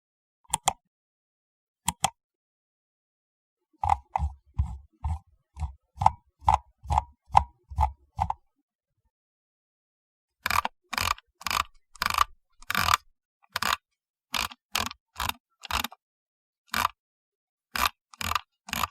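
Computer mouse buttons clicking. There are two single clicks, then a run of about a dozen clicks at roughly two a second. After a short pause comes a further run of brighter clicks, some in quick pairs like double-clicks.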